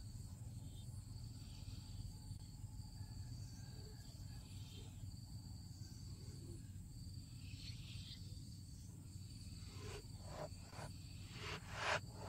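Soft crackling rustles of fingers handling fluffy puffball flower heads, several short ones from about ten seconds in, over a faint steady background with a thin high-pitched whine and a low hum.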